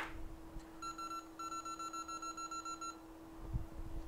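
Electronic beeping from workbench equipment: a click, then one short beep and a quick run of high beeps, about six a second, for about a second and a half, over a faint steady hum.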